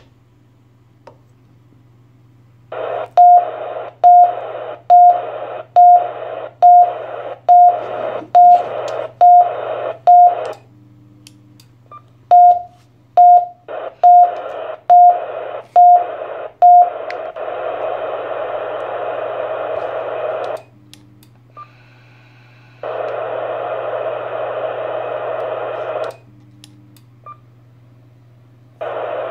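TYT TH-7800 dual-band mobile transceiver's speaker beeping over and over, a short sharp beep about once a second, each one followed by a burst of hiss as the receiver opens. Two runs of beeps give way to longer stretches of steady hiss. This unwanted beeping is the radio's fault.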